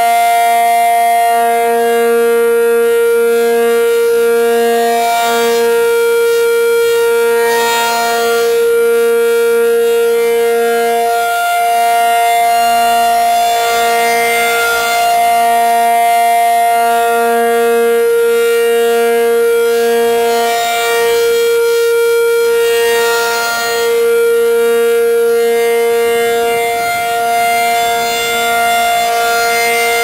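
Federal Signal 500-DH-TT dual-horn rotating warning siren sounding a steady two-note tone on its test activation, growing louder and softer every several seconds as the horn head turns.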